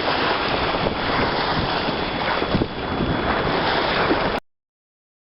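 Wind buffeting the microphone over water rushing and slapping along the hull of a MacGregor 26X sailboat under way upwind in a chop, in gusts. It cuts off suddenly about four seconds in.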